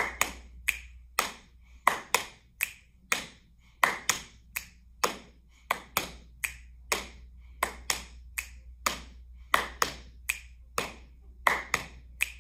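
Body percussion: hands patting the thighs, clapping and finger-snapping in a repeating pat, clap, pat, snap pattern, a steady beat of about two to three strokes a second.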